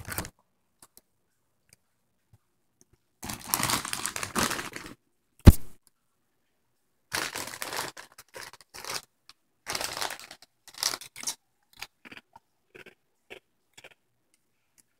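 Crinkling and rustling of a foil Doritos bag and crunching of tortilla chips, in noisy bursts of a second or two with short scattered crackles between. One sharp knock about five seconds in is the loudest sound.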